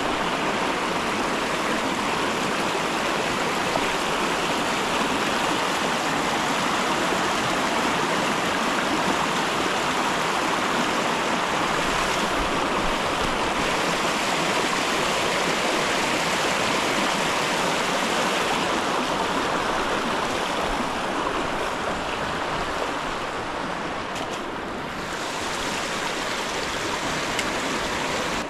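Creek water rushing over rocks and roots in a shallow riffle, a steady close-up rush that eases a little for a moment about three seconds before the end.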